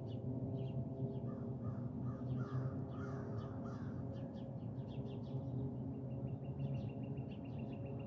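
A steady low hum made of several held tones: the unexplained strange noise. Over it, small birds chirp, and a bird gives a quick series of about nine short calls from about a second in to about four seconds in.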